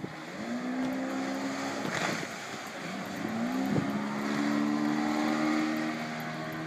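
Speedboat engine running at high speed, its pitch rising twice and then holding steady, with wind on the microphone.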